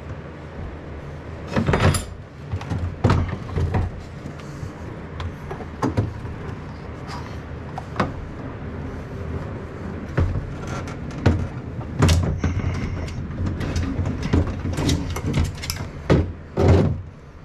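Irregular clanks, knocks and scrapes of metal and hard plastic as a Yamaha two-stroke jetski engine is worked loose and lifted out of its fiberglass hull, with the sharpest knocks about two seconds in, near twelve seconds and near the end, over a steady low hum.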